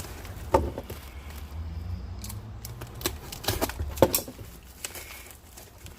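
Packaging being cut and pulled open by hand: a few sharp clicks and knocks with some crinkling of wrapping, over a low steady hum.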